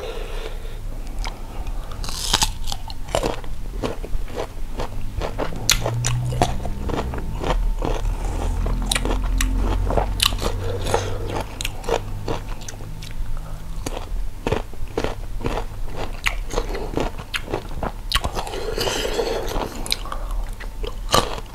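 Crunchy biting and chewing of crisp, unripe green mango slices dipped in chili salt, a fast irregular run of sharp crunches.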